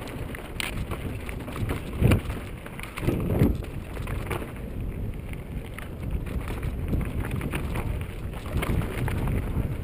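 Mountain bike rolling fast down a rocky dirt singletrack: tyres crunching over dirt and loose stones, the bike rattling and knocking over bumps, with wind rushing on the microphone. The loudest knocks come about two seconds in and again about three seconds in.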